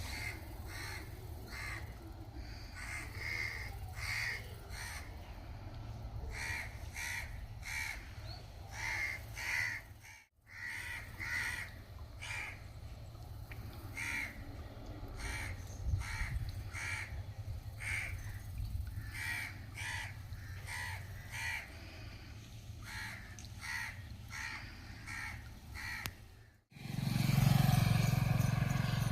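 Short bird calls repeated one or two times a second, over a steady low rumble. The sound drops out briefly twice, and the rumble grows louder near the end.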